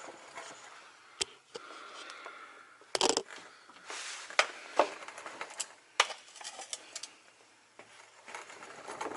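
Scattered sharp metallic clicks and knocks, with a louder cluster about three seconds in, from hand work on a heavy truck transmission as it is eased into place against the clutch.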